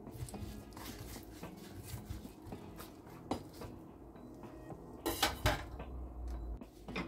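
Kitchen knife knocking and scraping on a wooden cutting board while scoring raw chicken leg quarters, with light handling knocks and a louder clatter about five seconds in.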